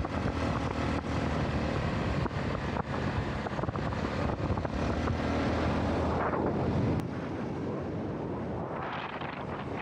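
Motorcycle riding along a road, wind rushing over the action camera's microphone over the engine's steady running. The wind noise eases a little about seven seconds in.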